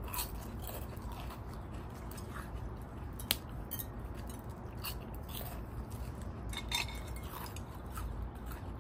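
Close-up eating sounds: chewing and biting, with a few sharp crunches from crisp fried crackers eaten with beef salad. The loudest crunch comes about a third of the way in.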